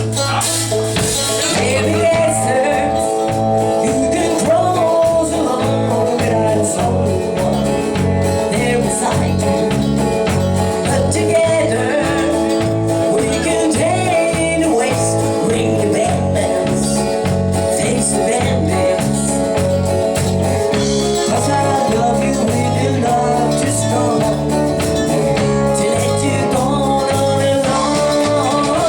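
Live country band music, loud and steady, with a bass line stepping in an even beat under guitar.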